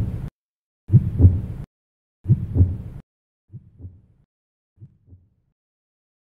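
Heartbeat sound effect: deep lub-dub double thumps about every 1.3 seconds, growing fainter with each beat and dying away about five seconds in.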